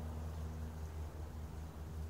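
Steady low mechanical hum with a few steady tones, unchanged throughout, over a light background hiss.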